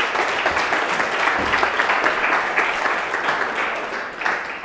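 Audience applauding: many people clapping at once, dying away near the end.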